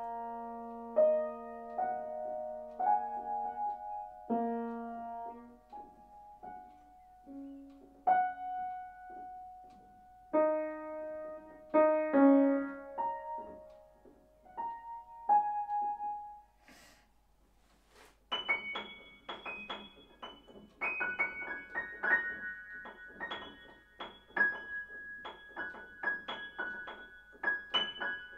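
Grand piano played solo. It begins with slow phrases of held notes in the middle register, separated by short pauses. After a brief silence about two-thirds of the way in, it switches to quick, repeated notes high on the keyboard.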